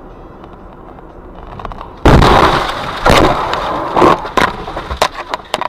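Car crash heard from a dashcam inside the car: low road noise, then a sudden loud impact about two seconds in, followed by a run of crunching blows and sharp knocks as the car is thrown about.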